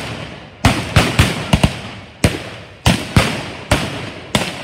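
Irregular small-arms fire with blanks: about ten sharp shots spaced unevenly, some in quick pairs, each followed by a short echo.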